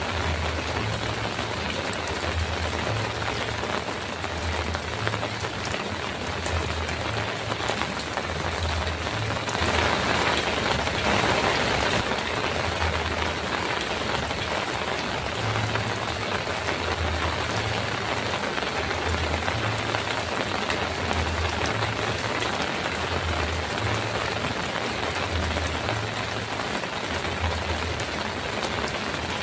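Heavy rain drumming steadily on a metal roof, swelling briefly heavier about a third of the way through, with a low rhythmic throb underneath.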